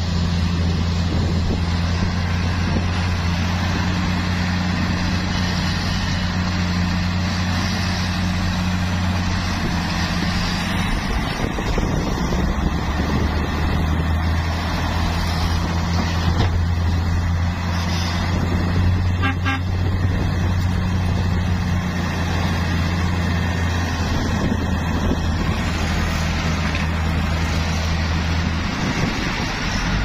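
Diesel engines of a crawler bulldozer and a tipping dump truck running together, a continuous low drone whose pitch shifts slightly about a third of the way in as the machines work the dirt.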